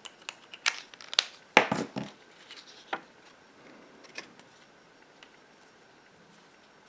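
Paper and cardstock being handled on a craft mat as a sheet of gold-foil designer paper is laid onto glued green cardstock: a handful of sharp taps and clicks over the first three seconds, the loudest about one and a half seconds in, then faint handling.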